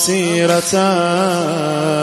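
A male eulogist chanting a Muharram noha (mourning lament) into a microphone, drawing out the refrain in long notes that waver up and down.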